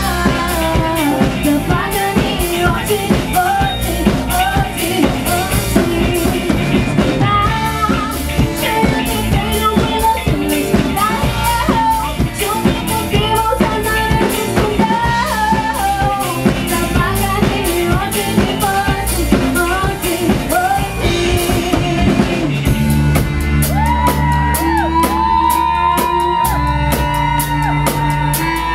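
Live rock band playing: drum kit, bass and electric guitar under a lead melody that bends in pitch. About 22 seconds in, the music changes to long held lead notes over steady bass notes.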